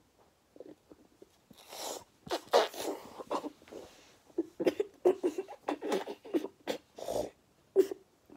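A boy gagging and groaning in disgust at the taste of an olive: after a short quiet, a rapid string of short strained vocal noises and breathy snorts.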